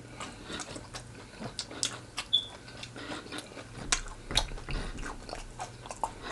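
A person chewing and biting fried chicken close to the microphone, with irregular crunches and wet mouth clicks.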